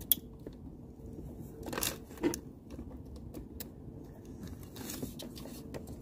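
Plastic solar-cable plug connectors being handled and pushed together: a few sharp clicks, the loudest right at the start and another about two seconds in, among quieter rustling and rattling of the cables.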